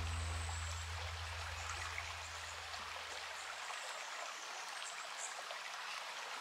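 Small creek running steadily, an even trickling wash of water. A low held music chord fades out over the first few seconds.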